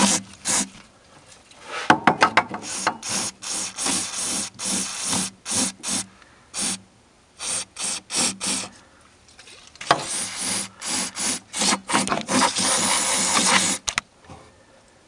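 Hand tool scraping or rubbing in runs of short, repeated strokes. The strokes thin out briefly midway, come densely again, and stop shortly before the end.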